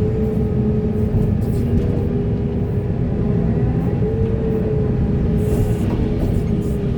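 Heavy diesel excavator running steadily under working load: a constant low rumble with a steady tone sitting above it.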